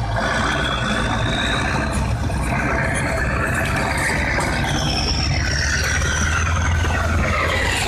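Tracked all-terrain vehicle's engine running steadily with a low rumble, and a high whine that slowly climbs in pitch, twice.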